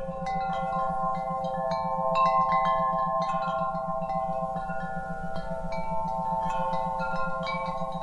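Metal wind chimes struck again and again, their ringing tones overlapping and sustaining. Beneath them a low electronic tone pulses on and off several times a second: an isochronic tone meant for relaxation entrainment.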